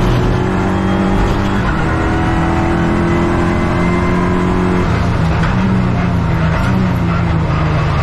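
Renault Clio Cup race car's engine running hard at racing speed. Its pitch drifts slowly down, then changes about five seconds in.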